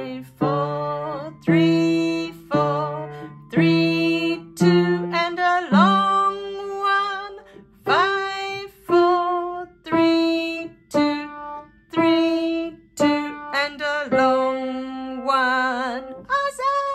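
Kawai upright piano playing a simple beginner melody in single notes, about one a second, each struck and left to ring. A voice sings along in places.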